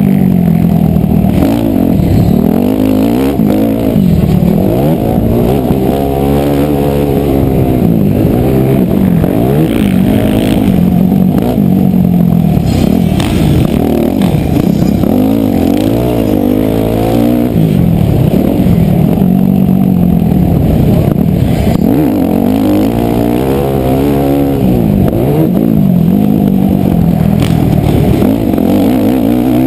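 Motocross bike engine revving up and dropping back again and again as the throttle opens and closes through the corners and straights, with occasional knocks, heard from the rider's helmet.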